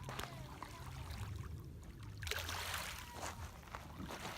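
Kayak paddle strokes splashing and water trickling off the blade, with a louder splash about two seconds in, over a steady low rumble.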